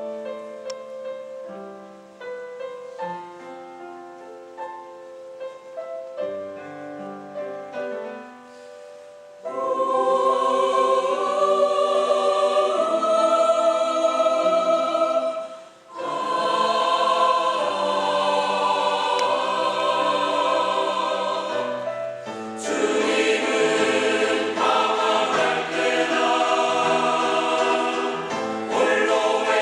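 Church choir singing a sacred anthem with piano. For about the first nine seconds the piano plays alone, then the choir comes in loudly, breaks off briefly near the middle, and sings fuller and louder in the last part.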